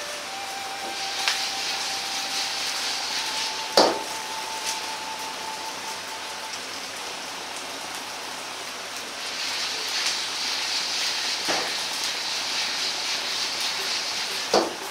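Yakisoba noodles sizzling in oil in a wok over a gas flame, crisping on their second side: a steady frying hiss that swells for a few seconds early on and again in the second half. A few sharp knocks of the wok being moved on the stove, the loudest about four seconds in, another at about eleven and a half seconds and one near the end.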